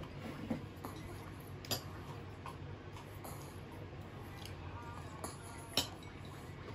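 Quiet room tone broken by a few small, sharp clicks, the loudest near the end.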